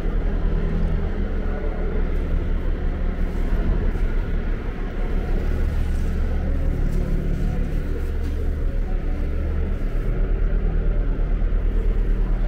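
Steady low rumble with no clear start or stop.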